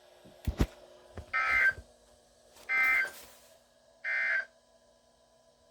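Emergency Alert System end-of-message tones: three short bursts of SAME digital data code, each about half a second long and roughly 1.3 s apart, marking the end of a severe thunderstorm warning. Two low thumps come about half a second in, over a faint steady hum.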